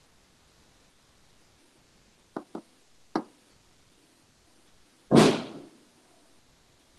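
Three short knocks, two close together and a third just after, then about two seconds later a much louder thump that dies away over about half a second.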